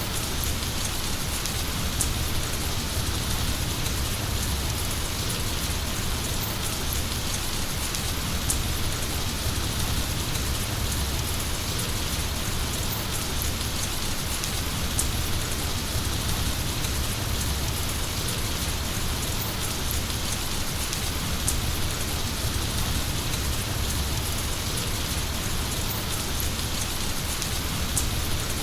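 Heavy rain falling steadily, a dense even hiss with a low rumble underneath and occasional sharper single drops.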